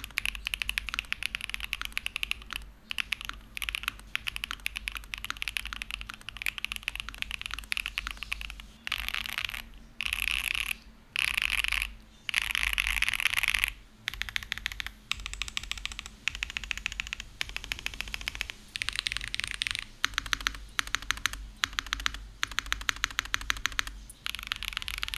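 Typing on a mechanical keyboard with lubed Akko Starlit switches and double-shot PBT keycaps, each key bottoming out with a thock. There are bursts of very fast typing around the middle, and near the end a steady run of single keystrokes a few times a second.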